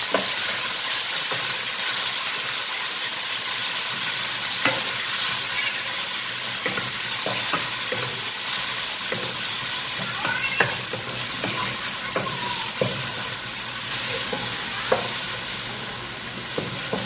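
Thinly sliced beef sizzling in hot oil with garlic in a wok, freshly added raw meat, while a wooden spatula stirs it with scattered scrapes and knocks against the pan. The sizzle eases a little toward the end.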